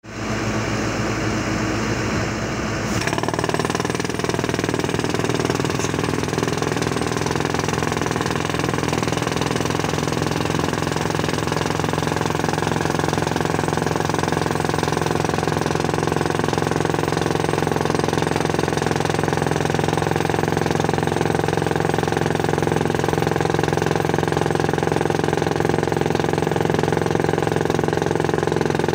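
Pneumatic rock drill on a wheeled blast-hole drilling rig hammering into rock, a fast, steady rattle of blows. The sound shifts about three seconds in, then runs evenly.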